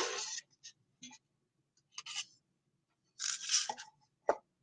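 Trading cards being handled and slid against one another: a few short scraping swishes, then a sharp click near the end.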